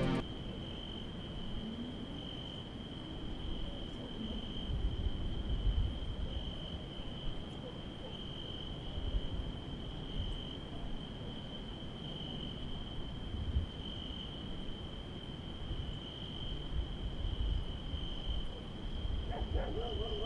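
Crickets chirping in a steady chorus, one unbroken high note with a slight pulse, over a low rumbling noise.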